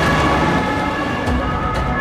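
Police car siren sounding steadily over the rumble of car engines.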